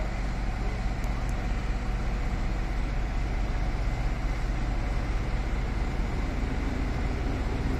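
Heavy truck's diesel engine running steadily with a low, even hum, heard from inside the cab.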